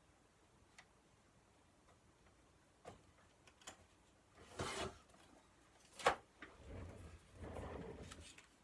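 Paper being handled and trimmed at a craft table: a few faint clicks, a short rustle, a sharp click, then a longer rustle of paper near the end.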